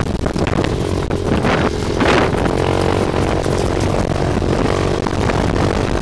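Roketa 250cc buggy's CN250-type single-cylinder four-stroke engine running steadily under way, heard through its aftermarket muffler, with clatter and rattles from the chassis over the road. There is a brief rush of noise about two seconds in.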